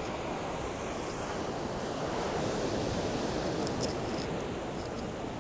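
Ocean surf washing onto the shore: a steady rush of breaking waves.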